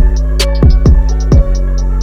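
Electronic background music with a sustained deep bass, kick drums that drop sharply in pitch, a sharp snare-like hit, and a quick hi-hat pattern.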